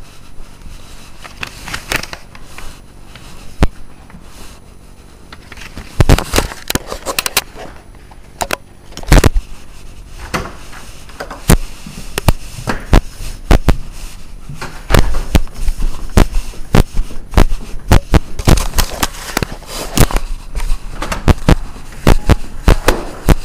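Irregular sharp crackles and pops, scattered at first and coming thick and fast through the second half.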